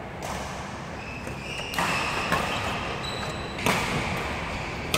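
Badminton rally: about four sharp racket strikes on the shuttlecock in the second half, with short high squeaks from court shoes on the floor between them.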